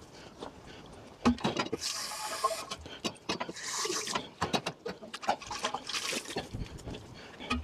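Water being swilled around the emptied plastic filter container to rinse out leftover resin. It comes in three or so splashing surges, with knocks of the plastic between them.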